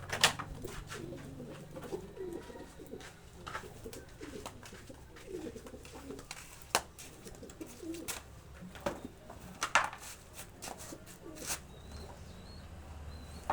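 A pigeon cooing repeatedly, low and soft, with scattered sharp clicks and knocks, the loudest about a third of a second in and around seven and ten seconds in. A faint high chirping comes near the end.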